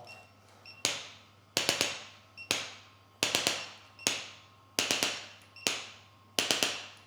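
Sharp slap-like hits in a strict repeating rhythm: a single hit, then a quick run of three, the pattern coming round about every one and a half seconds. Each hit rings out briefly. A faint steady hum runs underneath.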